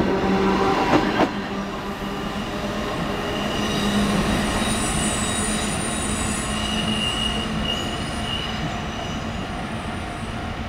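Four-car vintage Kotoden electric train pulling away and receding, with a couple of sharp wheel clacks about a second in. From about three seconds on its wheels squeal on the curve, a steady high squeal that fades toward the end.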